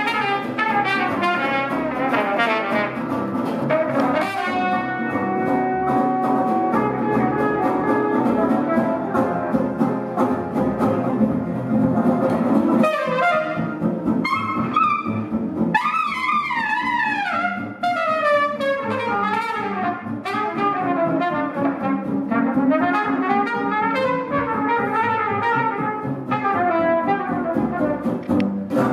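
Live small-band jazz: a trumpet solo in quick melodic runs and bends over guitar and plucked upright bass.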